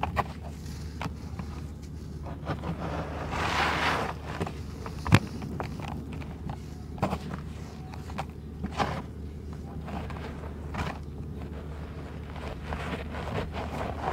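Hands digging through and crumbling dry red sand-cement chunks in a tub: irregular gritty crunching and rustling with scattered crackles, a longer rustle about three to four seconds in and one sharp crack just after five seconds.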